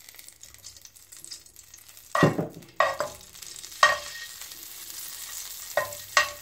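A metal spoon knocks and scrapes against a metal pan as it breaks up ghee melting in it. There are five sharp, ringing clacks from about two seconds in, over a faint sizzle of melting ghee.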